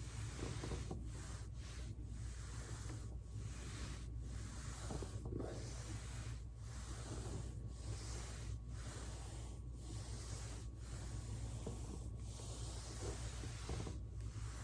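Foam roller rubbing and rolling against clothing and a mat in soft, repeated scuffs over a steady background hiss and hum, with no distinct joint cracks.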